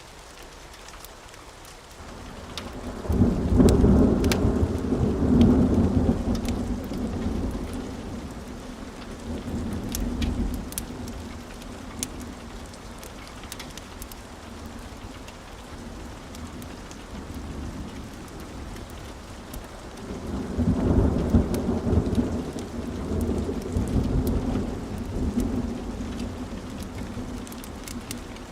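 Steady rain with scattered light ticks, and two long rolls of thunder: one starting about three seconds in and one about twenty seconds in. Each rumbles loudest at first and then fades slowly.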